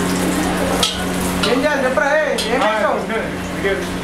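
Metal ladle stirring and scraping in a hot wok, with oil sizzling and a few sharp clinks of metal on metal. A voice calls out briefly in the middle, over a steady low hum.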